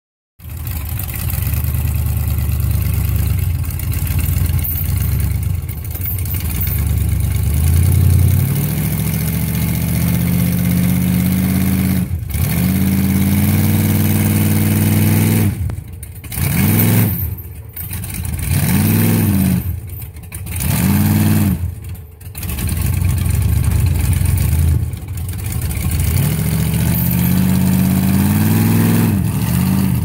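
Lifted mega truck's engine revving hard under load as it drags an evergreen shrub out by the roots on a chain. It climbs steadily at first, then gives four quick rev-ups that each fall straight back in the middle, then one long climbing rev near the end.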